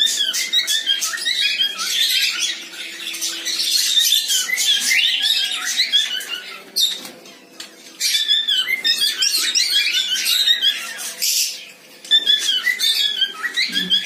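Cockatiels in an aviary chirping and squawking, many short high calls overlapping, with brief lulls about seven and twelve seconds in.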